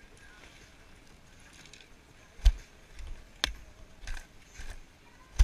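Ski gear knocking and clicking close to the microphone as a skier shifts on skis and poles on packed snow. About five sharp clacks fall in the second half, with the loudest about halfway through and another at the end.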